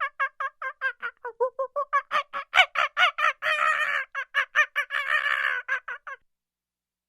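An animal calling in a rapid run of short, pitched notes, about six a second. The notes merge into two longer unbroken stretches about halfway through, and the calling stops shortly before the end.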